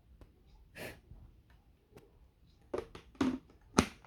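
Scattered handling noises: short clicks and rustles of plastic parts being handled, with a sharp click near the end.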